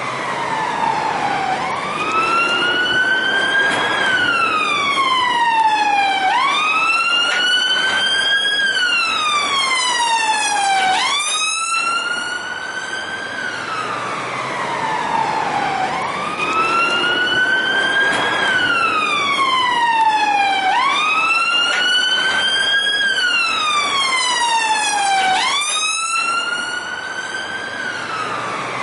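Police car siren wailing: its pitch rises slowly and falls again, each sweep taking about two seconds, with a second wail overlapping it at times. The same up-and-down pattern repeats about every fourteen seconds.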